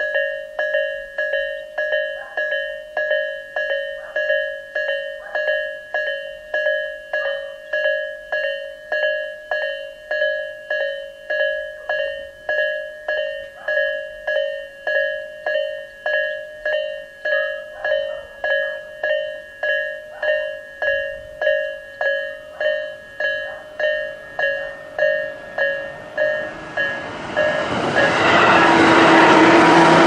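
Japanese level-crossing warning bell ringing in an even rhythm, about one and a half strikes a second: the Isesaki-type electronic tone in a slightly lower-pitched, slower version. Near the end a train arrives and passes, its rail noise loud enough to bury the bell.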